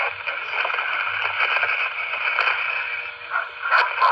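Two-way radio static: a steady rushing hiss from a scanner speaker as a channel is keyed open, broken by a few short louder bursts near the end.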